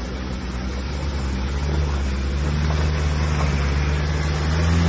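Engine of a 4x4 off-road vehicle running steadily while driving a trail, getting gradually louder.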